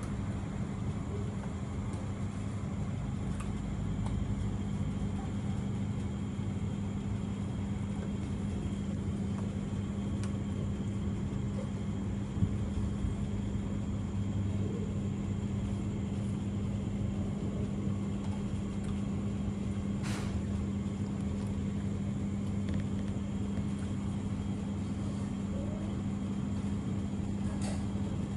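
Steady low machine hum with a rumble underneath, unchanging; a single short knock about twelve seconds in.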